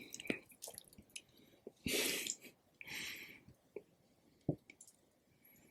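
Close-miked chewing with wet mouth sounds and small clicks, with two short louder noisy bursts about 2 and 3 seconds in and a sharp click about 4.5 seconds in.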